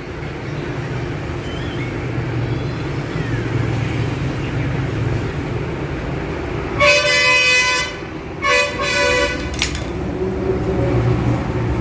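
Vehicle horn honking twice, each honk about a second long and a moment apart, over a steady low rumble of traffic.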